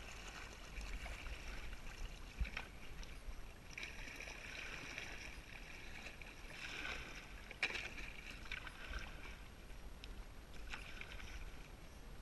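Kayak paddle strokes: the blades dip and splash in the water about every two seconds, as a plastic kayak is paddled across open water, with two sharp clicks, one a little over two seconds in and one near eight seconds.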